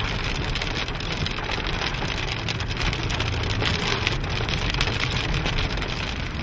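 Hail and heavy rain striking a vehicle's roof and glass: a dense, continuous clatter of impacts over a steady low rumble.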